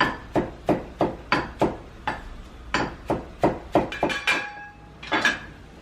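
Repeated sharp knocks of a kitchen utensil, about three a second, in two quick runs, then one more a little after five seconds in.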